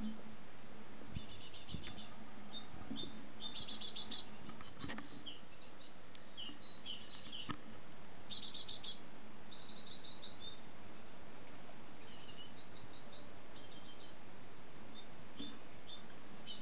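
Great tits calling: about half a dozen short bursts of rapid high notes, each about half a second long, repeated every few seconds, with softer single high notes in between.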